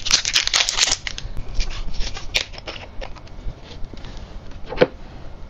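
Plastic seal on a sauce bottle's cap being torn and peeled off, a dense crinkling and tearing in the first second, then softer crackles and clicks, and one sharp click near the end.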